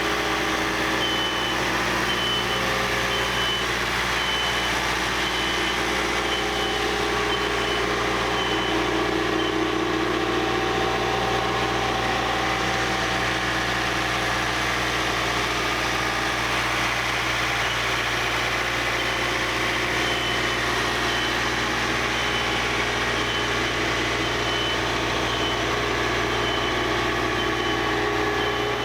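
Wood-Mizer LT-15 portable bandsaw mill running steadily, with a faint high-pitched tone pulsing on and off over it.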